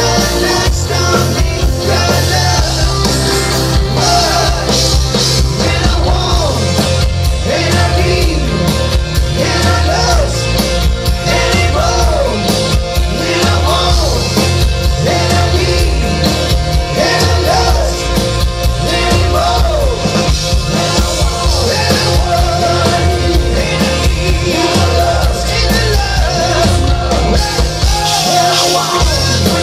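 Live rock band playing loudly: electric guitar, bass guitar, Korg keyboard and drum kit, with sung vocals.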